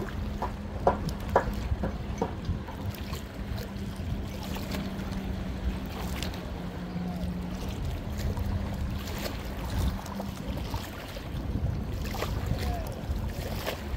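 Wind on the microphone and sea noise at the rocks, with a steady low motor hum underneath. A few short sharp clicks come in the first two seconds.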